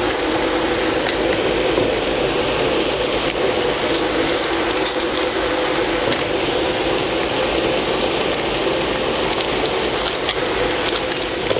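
Pork mince and diced tomatoes sizzling steadily in a frying pan, with scattered small pops over a steady low hum.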